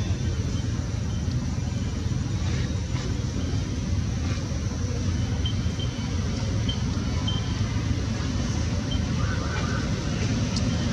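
Steady low rumble, with a few faint short high chirps around the middle.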